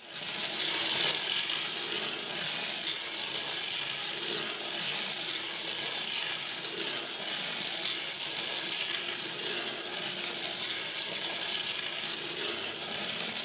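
Capsule Plarail wind-up toy engine (Painted Thomas) running on plastic track: a steady clockwork whir with its plastic wheels rattling over the rails. The sound swells slightly about every two and a half seconds.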